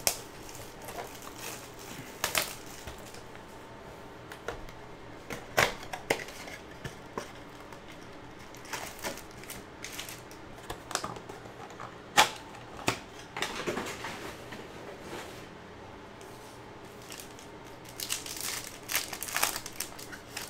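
Handling and opening a cardboard trading-card blaster box: scattered crinkles, clicks and cardboard scrapes as the box is opened and its insert and foil packs are pulled out. Near the end comes a denser run of crinkling as a foil card pack is torn open.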